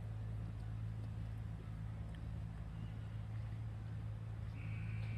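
A steady low mechanical hum of a running motor, unchanging throughout, with a brief high tone near the end.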